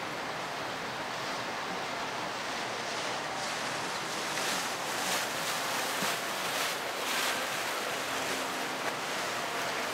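Steady rushing and splashing of river water churned by passing boats' wakes and propeller wash, mixed with wind on the microphone; the hiss swells louder for a few seconds in the middle.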